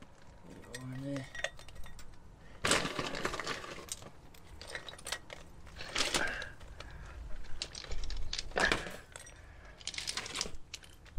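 Wood chips rattling and clinking as handfuls are dropped into the stainless steel chip canister of a Smokai smoke generator, in several separate bursts.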